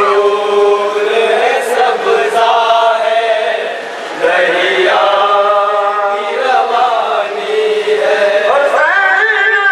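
A man chanting a noha, an Urdu mourning elegy, in long held melodic notes that slide between pitches, rising to a high sustained note near the end.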